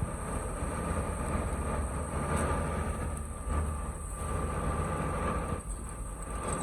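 Heavy road-work machinery running steadily: a low engine rumble with a thin steady whine and hiss over it.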